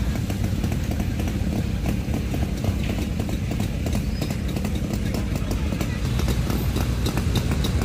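Old cars and motorcycles running at low speed as they roll past, under a steady low engine rumble with a rapid, uneven popping from the motorcycle engines.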